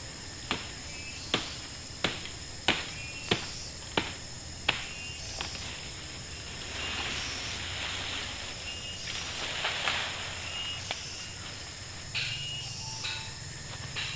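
Chopping: about eight sharp strikes, roughly one and a half a second, stopping about five seconds in, followed by two swells of rustling. A steady high insect drone runs underneath.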